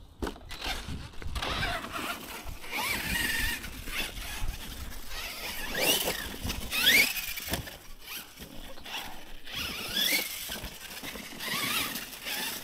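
Losi LMT Grave Digger 1/10 RC monster truck running on a 3S LiPo: its electric motor and drivetrain whine, rising in pitch several times with bursts of throttle, the strongest rise about halfway through, over the rough noise of the truck crossing uneven ground.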